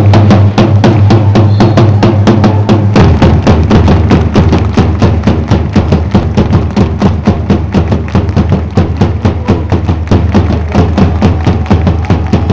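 Fans beating a large bass drum and clapping in time, a fast steady beat of about four strikes a second, with the crowd chanting underneath. The low held chant drops in pitch about three seconds in. Very loud.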